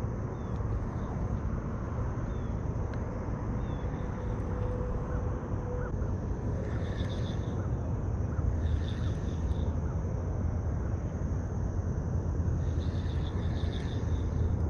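Outdoor morning ambience: a steady low rumble, with short pulsed chirping calls that come three times, each about a second long.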